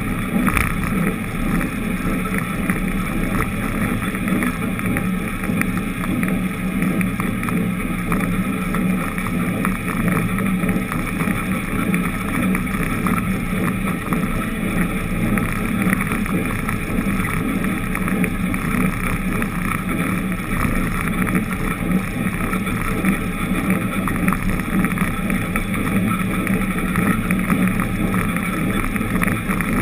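Steady drone of a moving vehicle's engine, with road and wind noise, holding even throughout.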